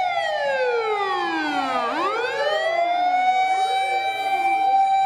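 Fire engine siren wailing: its pitch sweeps down over about two seconds, then rises again in repeated sweeps over a steady high tone.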